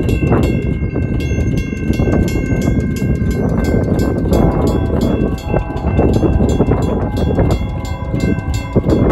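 Railroad crossing bells ringing continuously as the gates lower: a General Signals Type 2 electronic bell and a WCH mechanical bell striking rapidly and evenly, with steady ringing tones, over a dense low rumble.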